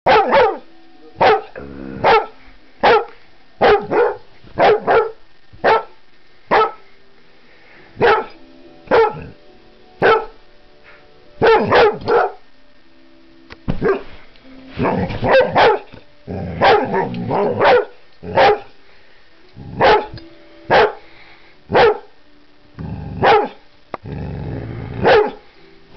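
A Vizsla (Hungarian pointer) barking over and over in short single woofs, about one a second, sometimes two or three in quick succession.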